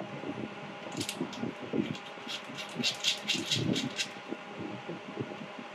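Footswitch cable's round metal screw-lock connector being pushed into its panel socket and its collar turned tight: a run of small metallic clicks and scratches, densest from about two to four seconds in, over a faint steady hum.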